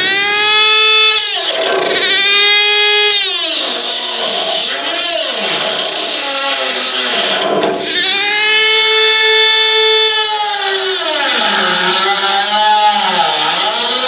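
High-speed power cutting tool cutting through sheet metal with a steady whine. The whine sags in pitch each time the tool is pressed into the cut and climbs back as it is eased off, several times over.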